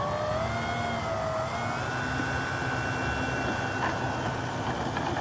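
Brushless electric motor of a model plane (SUPPO 3520/6, 840Kv) spinning a 12x10 propeller on the ground, giving a steady whine. The pitch climbs about a second and a half in and then holds, as the throttle is run up during the pre-flight check.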